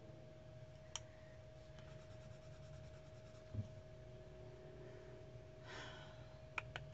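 Near silence with faint handling of coloured pencils: a light click about a second in, a soft knock midway, a brief soft hiss and a few quick clicks near the end, over a faint steady hum.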